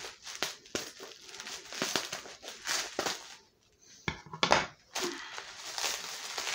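Plastic bubble wrap rustling and crinkling as a package is unwrapped by hand. The rustling is uneven, with a louder crackle a little past halfway.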